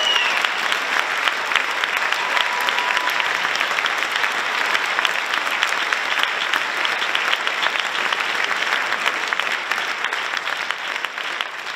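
Audience applauding steadily with many hands clapping, fading toward the end.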